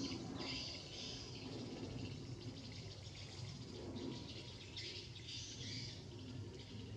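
Outdoor background of birds chirping, with two stretches of high chirping: one just after the start and one about five seconds in.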